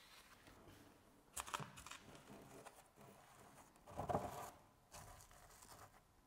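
Faint handling noises: gloved hands twisting a threaded anchor into fresh injection mortar in a wall sleeve. There are short scraping rustles, the loudest about four seconds in.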